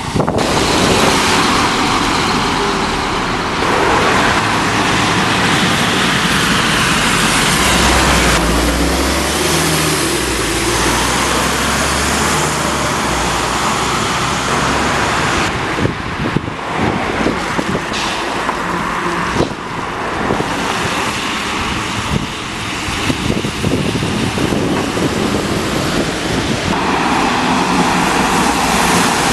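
Road traffic on a wet road: single-decker buses and cars passing, with steady tyre hiss and engine noise, and a deeper rumble about a third of the way through.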